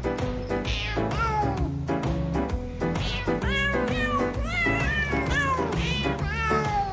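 Music with a steady beat, mixed with frequent short cat meows that rise and then fall in pitch.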